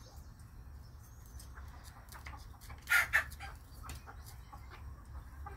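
Broody Old English Game Bantam hens pecking grain from a plastic bowl and the concrete, a scatter of small clicks, with one short, loud double cluck about three seconds in.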